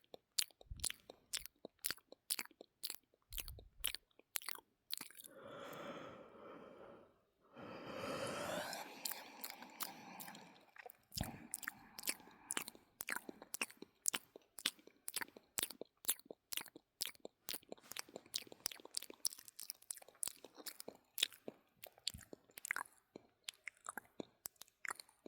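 Close-up wet mouth sounds: sharp tongue-and-lip clicks, spaced out at first, then two long breaths about five seconds in, then fast clicking at about four to six a second.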